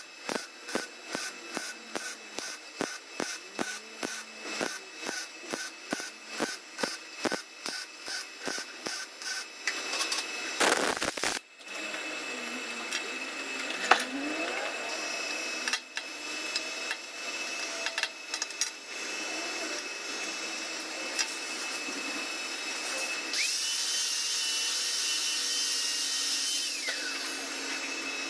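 TIG welding arc on a bolt, pulsing about two to three times a second for the first ten seconds, then a steadier hiss. Near the end a louder, high steady whine that rises at its start and falls away a few seconds later.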